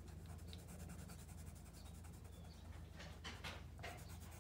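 Coloured pencil shading lightly on paper: faint, quick scratchy strokes, a little stronger about three seconds in, over a low steady hum.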